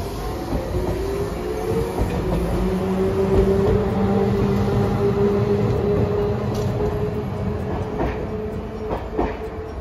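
Hiroshima Electric Railway articulated low-floor tram accelerating away: its motors whine, rising in pitch over the first few seconds and then holding steady. Near the end the wheels clack over rail joints a few times.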